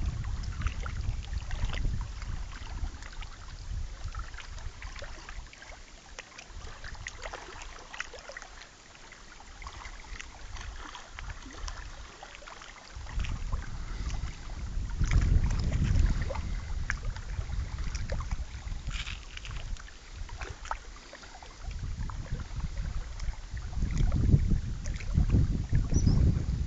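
Wind gusting on the microphone as a low rumble. It eases for several seconds in the middle and picks up again after.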